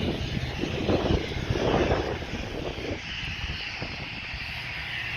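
Large diesel engine running steadily with a low hum and a higher whine above it, with louder irregular rumbling bursts during the first three seconds.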